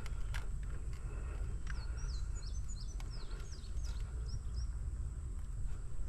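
A songbird singing a quick series of short, high sweeping chirps, starting about a second and a half in and stopping near the two-thirds mark, over a steady low outdoor rumble with a few faint clicks.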